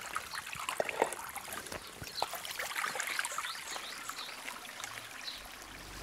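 Water trickling and splashing out of a small spring-fed pool as its outlet is opened to drain it, with scattered small drips and splashes throughout.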